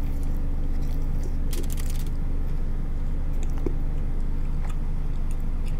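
A person chewing a mouthful of burger close to the microphone, with a few soft wet crunches and mouth clicks about one and a half to two seconds in. A steady low hum runs underneath and is the loudest sound.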